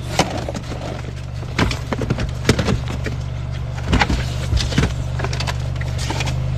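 Irregular clunks and knocks of belongings being shifted and set down inside an SUV's cargo area, over a steady low engine hum.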